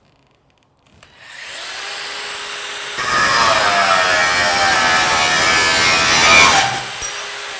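Metabo 18-volt cordless angle grinder starting and spinning up with a rising whine about a second in, then its cut-off disc pushed hard through a metal bar for about four seconds, a loud grinding that does not bog the motor down. Near the end the disc breaks through and the motor's whine climbs back up to free-running speed.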